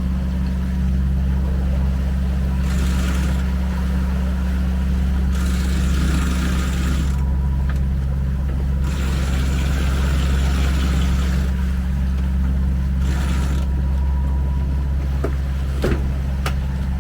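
Yacht's engine running steadily under way with a deep, even drone. A rushing hiss swells and fades four times over it, and a few sharp knocks come near the end.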